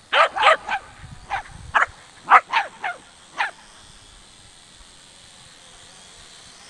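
A dog barking: a quick run of about nine sharp barks in the first three and a half seconds, then it stops.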